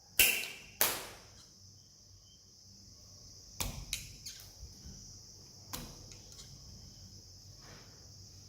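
Two sharp knocks close together near the start, then a few lighter clicks and taps, over a steady high-pitched hiss.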